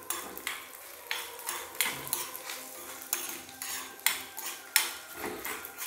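Steel spoon stirring whole spices in ghee in a small black iron kadai, scraping and clinking against the pan in irregular strokes about two a second.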